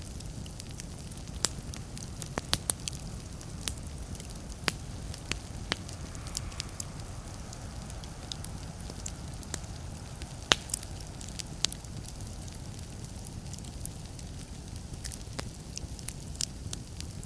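Wood fire burning in a fireplace: a steady low rumble of flames with irregular crackles and sharp pops of burning logs, the loudest pop about ten and a half seconds in.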